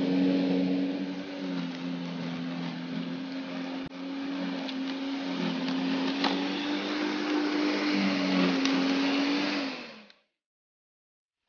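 Einhell electric lawn scarifier running as it is pushed across the turf: a steady electric-motor hum, wavering slightly in pitch, over a rushing noise. It cuts off suddenly about ten seconds in.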